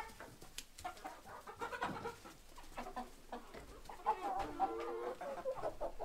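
Hens clucking, the calls growing louder and busier from about four seconds in.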